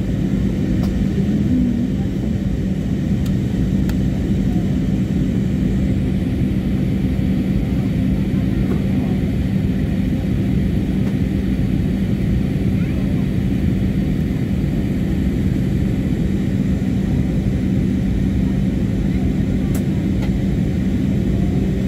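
Steady jet airliner cabin noise on approach: the engines and the rush of air over the fuselage, heard from inside the cabin, with a constant low hum under an even roar.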